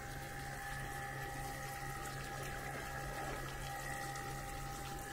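Steady running water of a garden fish pond, with a faint low hum under it.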